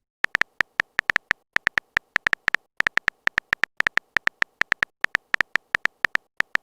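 A rapid run of short, identical electronic beeps, several a second at uneven spacing.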